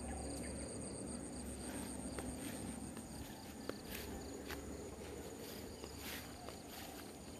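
Insects chirping in a fast, high-pitched pulsing trill, with a few soft footsteps in the grass now and then.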